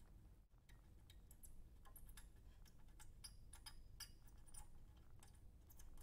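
Faint, irregular small ticks and crackles, several a second, as a soldering iron heats copper desoldering braid over flux-covered through-hole solder joints on a circuit board, wicking the solder out.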